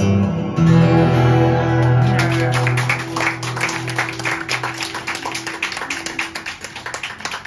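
Acoustic guitar's final chord ringing out and slowly fading, while an audience begins clapping about two seconds in and keeps applauding.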